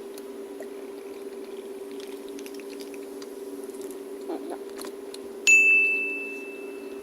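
A single bright ding about five and a half seconds in, ringing out and fading over a second and a half, over a steady faint hum with a few soft clicks.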